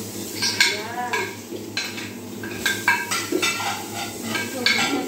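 A cooking utensil stirring in a pan, clinking against it irregularly about ten times, with a light sizzle of frying.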